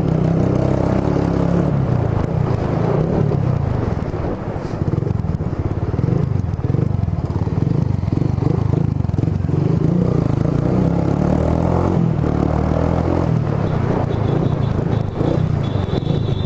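Suzuki GSR 150i motorcycle's single-cylinder engine running through an aftermarket Roncar SS oval exhaust while being ridden, its note rising and falling a little with the throttle.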